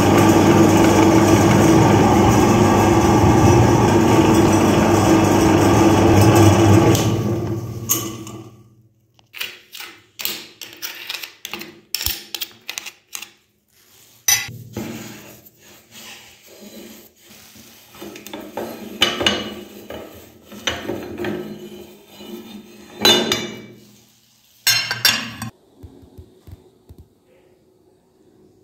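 Electric meat grinder's motor running steadily while it pushes ground chocolate through the plate, then winding down and stopping about seven or eight seconds in. After it come irregular metal clinks and knocks as the grinder head is taken apart, loudest near the end.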